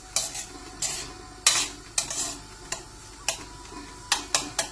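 A spoon stirring potato and tomato curry in a cooking pan, knocking against the pan about nine times at irregular intervals, over a faint sizzle.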